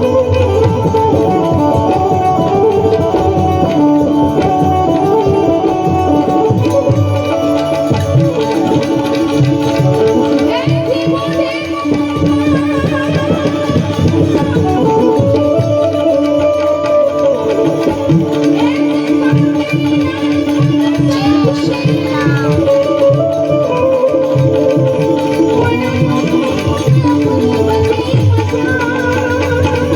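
Loud folk music with tabla-style hand-drum percussion keeping a steady beat under held instrument notes, and a singing voice coming in for a stretch in the middle.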